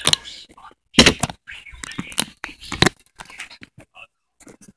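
Handling noise on a phone microphone: irregular clicks, knocks and scraping rustles as the phone is moved and rubbed against fabric.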